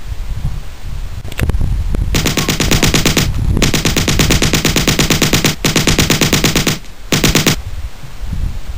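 Rapid automatic gunfire like a machine gun, in four long bursts with short breaks between them, preceded by a single sharp knock about a second and a half in.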